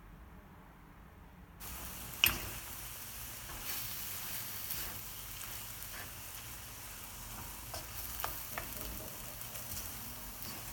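Food sizzling in a frying pan: a steady hissing sizzle that begins abruptly about a second and a half in, with a sharp clack just after it starts and scattered small crackles of spattering.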